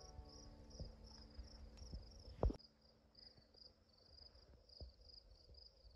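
Faint chirping of insects such as crickets, a high pulse repeating evenly about two to three times a second. Under it runs a low rumble, broken by a single sharp knock about two and a half seconds in, after which the rumble drops away.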